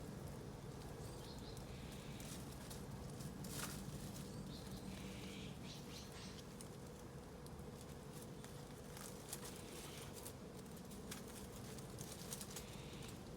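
Quiet outdoor background with a steady low hum, broken by scattered soft rustles and light clicks.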